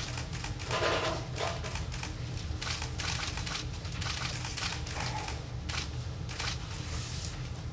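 Irregular clicking and rustling handling noise over a steady low hum, with a short strained grunt about a second in as a carriage bolt is bent in the teeth.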